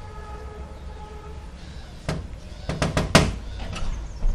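Knuckles knocking on a metal door: a single knock about two seconds in, then a quick run of raps about three seconds in, and a couple more near the end. Before the knocks, a steady pitched tone lasts about a second.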